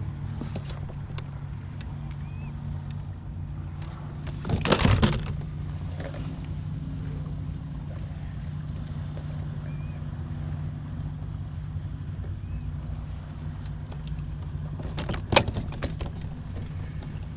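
A motor's steady low drone, with a short loud rattle about five seconds in and a sharp click near the end.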